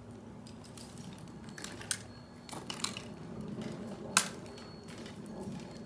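A few scattered sharp clicks and cracks, the loudest about four seconds in, over a low steady hum.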